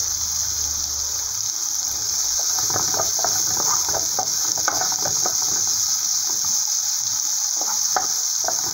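Diced bacon, green bell pepper and garlic sizzling in oil in a frying pan, with a steady high hiss. From about two seconds in, a wooden spoon stirs through it in many short scraping strokes.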